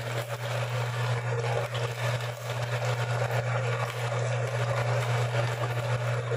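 Electric meat grinder running with a steady motor hum while it grinds chicken heads fed into it by hand.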